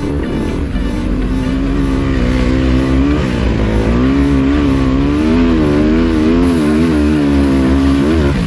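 Enduro motorcycle engine running hard, its pitch fairly steady for the first few seconds and then wobbling rapidly up and down, over a steady rushing noise.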